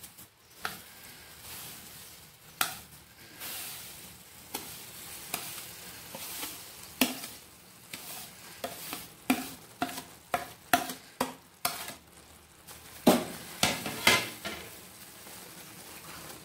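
Wooden spatula scraping roasted vermicelli off a plate into simmering milk in a pan and stirring it in: irregular taps and scrapes over the low sizzle of the milk, the scraping getting busier in the second half and loudest a few seconds before the end.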